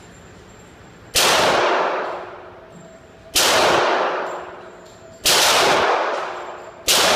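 Four pistol shots from a Glock 22 in .40 S&W, about two seconds apart, each echoing and dying away over about a second in an indoor range. The pistol keeps firing after being soaked in water.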